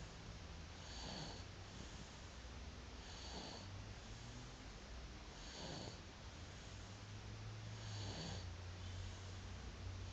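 Baby snoring faintly in its sleep, one snore with each breath, about five breaths evenly spaced a couple of seconds apart.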